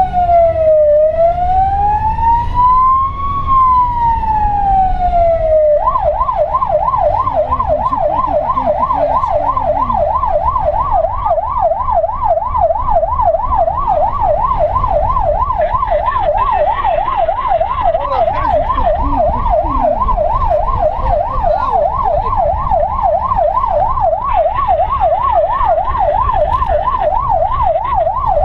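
Siren of a Peugeot Boxer fire-brigade rescue vehicle on an emergency run, heard from inside the cab over engine and road rumble. It gives a slow rising-and-falling wail that switches to a fast yelp, several sweeps a second, about six seconds in.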